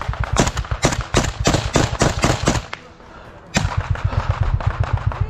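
Small-arms gunfire in a firefight: a string of sharp shots at about four a second for the first two and a half seconds, then after a short lull one loud shot followed by a fast low thumping.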